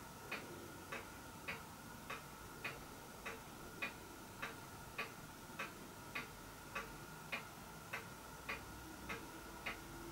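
Faint, even ticking, about five ticks every three seconds, over a faint steady hum.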